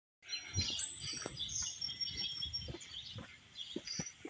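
Several small birds chirping and twittering, with a few soft low knocks mixed in.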